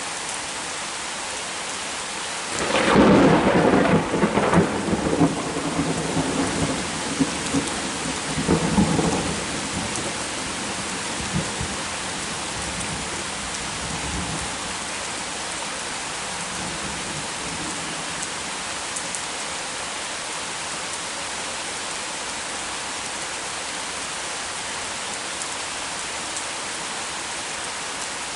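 Steady heavy rain, with a sharp thunderclap about two and a half seconds in. The clap breaks into rolling rumbles that swell several times and die away over the next ten seconds or so, after which only the rain remains.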